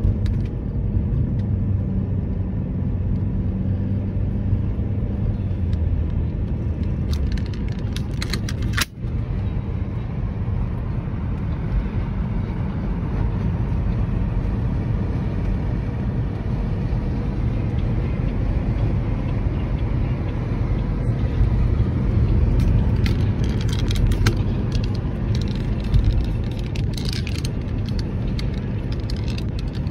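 Car road noise heard from inside the cabin while driving: a steady low rumble with a few light rattles, and a brief break about nine seconds in.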